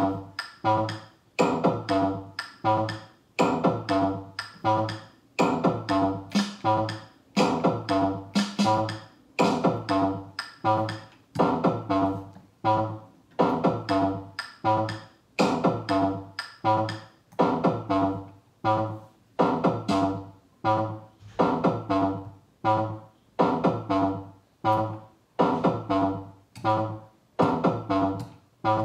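Electronic drum-machine beat built from Pocket Operator PO-32 Tonic drum sounds, looping steadily with about two loud hits a second and short pitched tones.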